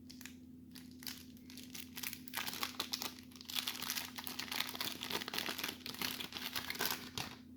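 Wax-paper wrapper of a 1991 Topps baseball card pack being torn open and crinkled by hand: an irregular crackling that gets busier about halfway through.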